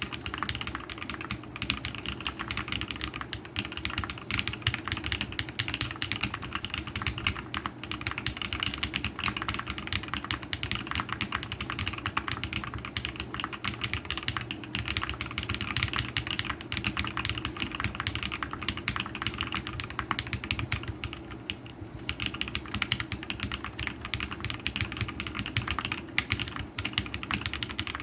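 Continuous fast typing on an MB-44 custom mechanical keyboard with Holy Panda tactile switches lubed with Tribosys 3204, mounted on a POM plate with foam and fitted with DSS-profile keycaps. The keystrokes run as a dense stream of clicks, with a brief lull about twenty-one seconds in.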